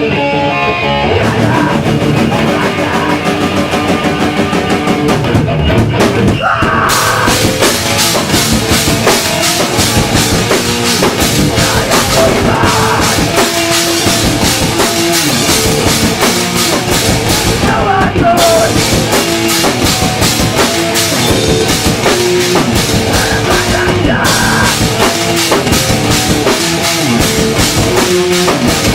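A hardcore band playing live: distorted electric guitars over a pounding drum kit, the full band crashing in a few seconds after a sparser guitar passage.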